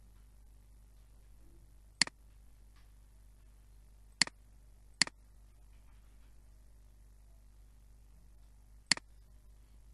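Four sharp single computer-mouse clicks at uneven intervals, two of them about a second apart, over a faint steady hum.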